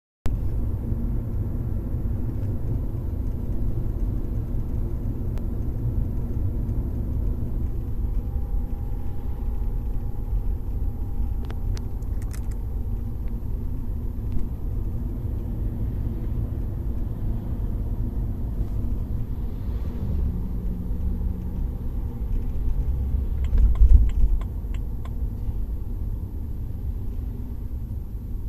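Steady low rumble of a BMW E90 on the move, heard from inside the cabin, with a few faint short clicks about twelve seconds in and again near the end, and a brief louder thump about twenty-four seconds in.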